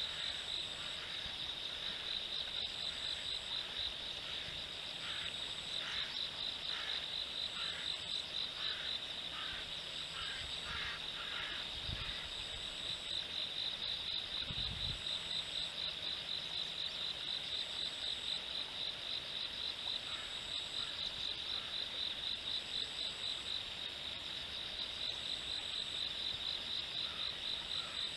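Insects trilling steadily in a fast, even pulse, with a short high note repeating about every second and a half or two. A frog calls in a run of short croaks for several seconds starting about five seconds in, and there are two dull low bumps near the middle.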